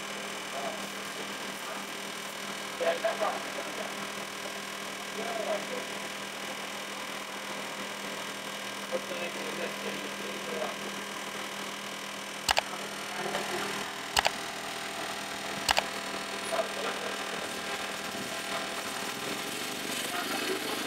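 Steady electrical hum with faint voices in the background. A little past halfway come three sharp clicks about a second and a half apart.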